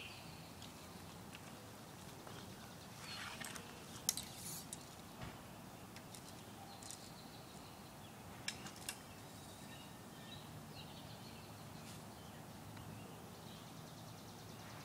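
Faint outdoor backyard ambience with occasional soft bird chirps, and a few light clicks: one about four seconds in and two close together past the middle.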